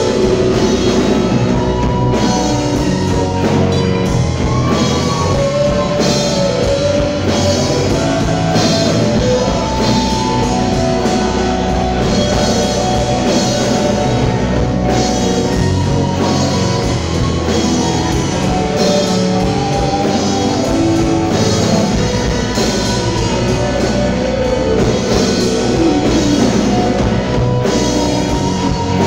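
Live rock band playing loud: a lead line on a Les Paul-style electric guitar, with bent notes, over drum kit and bass.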